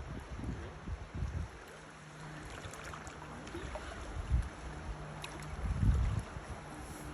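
Wind buffeting the microphone in low gusts, loudest about six seconds in, over a steady rush of river water.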